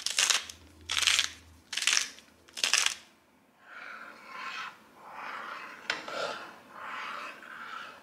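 Wooden salt mill being twisted over the pot, four short grinding crunches in the first three seconds. Then a metal ladle stirs thick puréed pumpkin soup in an enamelled pot, a slow swishing in swells, with one light knock of the ladle against the pot about six seconds in.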